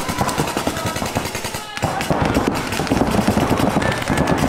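Rapid paintball marker fire: a dense stream of quick shots, with a brief lull a little under two seconds in.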